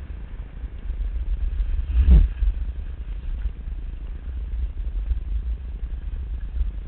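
Wind buffeting a camera microphone carried by a skier going downhill: a steady, fluttering low rumble with one louder thump about two seconds in.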